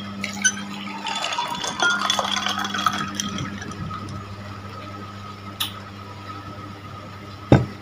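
Milky liquid poured from a glass jug into a tall glass over ice cubes, splashing and clinking for about three seconds. A sharp knock near the end.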